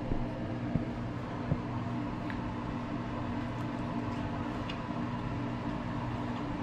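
Steady mechanical hum of a room appliance such as a fan, holding a few fixed low tones, with three light clicks of a fork against a plate in the first second and a half.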